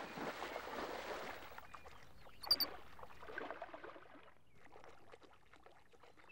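Water splashing as a great blue heron lunges into the shallows to fish, with a brief sharp double sound about two and a half seconds in, the loudest moment. The splashing dies down over the last couple of seconds.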